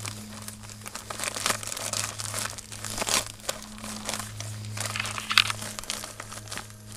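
Plastic bag of casting powder and water being kneaded and squeezed by hand, crinkling irregularly as the mix is worked, with a steady low hum underneath.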